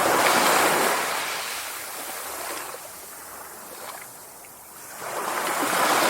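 Sea waves surging and washing in: one swell is loudest at the start and fades over a few seconds, then another builds from about five seconds in.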